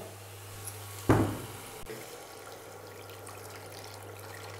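Water poured from a plastic container into a pan of fried masala, splashing and crackling as a wooden spatula stirs it, over the second half. About a second in there is a single sharp knock, the loudest sound, and a steady low hum runs underneath.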